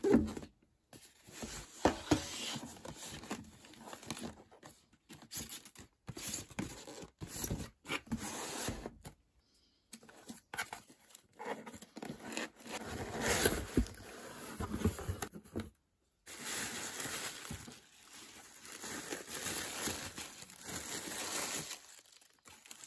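Paper and cardboard handling as a cardboard mailer box is unsealed and opened: a sticker seal peeled off, the lid lifted and tissue paper rustled. It comes in irregular bursts of rustling and tearing, with a few short silent gaps.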